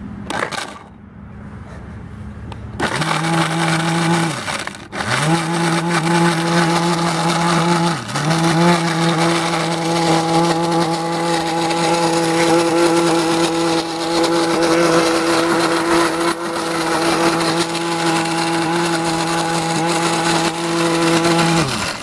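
Oster countertop blender motor running at speed, smashing a jar full of paintballs, with the clatter of the balls being broken against the glass jar. It starts about three seconds in, stops and restarts a second or so later, dips once more around eight seconds, then runs steadily until it winds down near the end.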